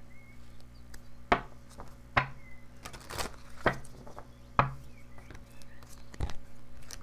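Oracle cards being handled and shuffled by hand: a series of about six sharp snaps and taps spread over several seconds.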